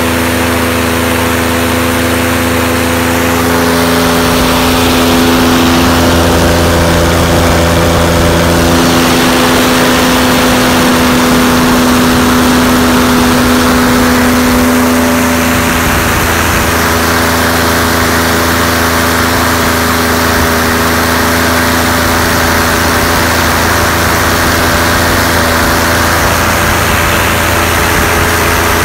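V-6 aircraft engine on a test stand turning its propeller at full power during a run-up: a loud, steady drone. The level drops slightly about halfway through, then holds steady.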